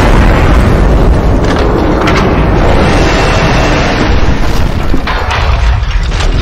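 Explosion sound effects: loud, continuous booming and rumbling with deep bass, with a few sharper cracks around two seconds and five seconds in.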